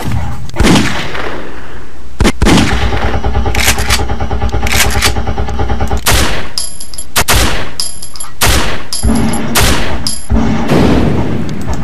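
Canned intro sound effects played one after another: loud, sudden gunshot-like blasts, with a stretch of rapid repeated fire in the first half.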